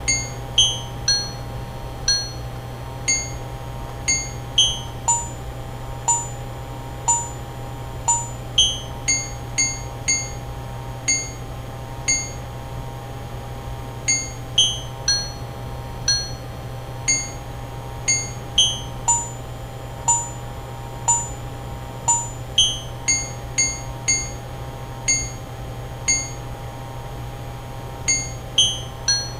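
Home-made electronic tune from free music software: short, high chime-like synth notes plinking at changing pitches, about one or two a second, over a held mid-pitched tone and a steady low hum. Recorded through a cheap microphone, so the sound quality is very poor.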